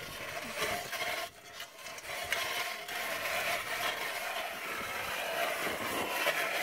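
Hand-cranked ice auger boring through ice, its blades scraping and rasping steadily as they cut, with a short break a little over a second in.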